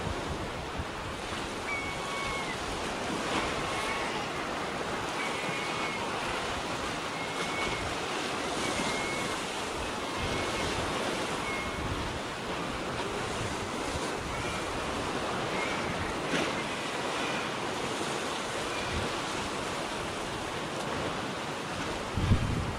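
Sea surf washing on a rocky shore, a steady rush, with short high calls from seabirds repeating about once a second over it.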